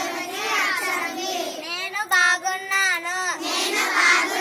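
Children's voices singing together, a continuous melodic line with held notes.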